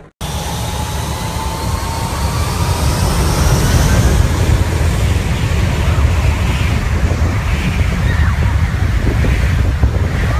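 Jet airliner's engines run up to takeoff power, a rising whine over a heavy rumble of jet blast, with the blast buffeting the microphone.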